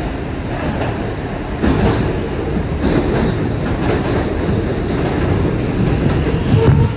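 An R142 subway car running at speed through the tunnel, heard from inside the car: a steady, loud rumble of wheels on rail, with a few short knocks.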